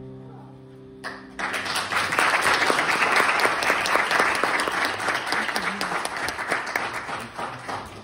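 Audience clapping at the end of a song: the music's last held chord fades out in the first second, then the applause breaks out, swells, and thins out near the end.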